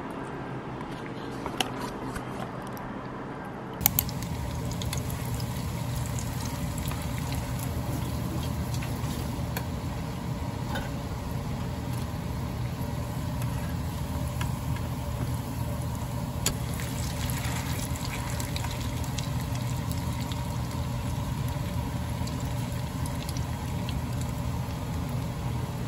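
Breaded cutlets deep-frying in a shallow square pan of oil: a steady sizzle with fine crackles, starting abruptly about four seconds in.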